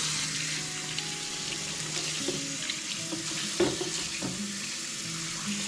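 Kitchen tap running into a sink as a boiled pork stomach is rinsed under it, a steady splashing rush of water with a couple of knocks of handling about halfway through.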